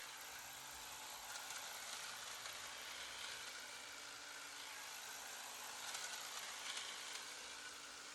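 Faint, steady whir of a cordless EGO 60-volt hedge trimmer running, with an even hiss over it.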